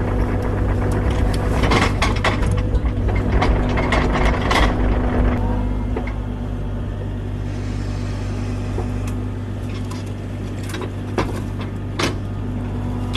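Kubota mini excavator's diesel engine running steadily, with many sharp clanks and knocks over the first half and two more near the end.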